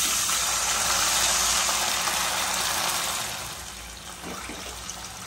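Water poured from a glass into a hot pan of oil-fried tempering, hissing and sizzling loudly for about three seconds, then settling to a quieter sizzle.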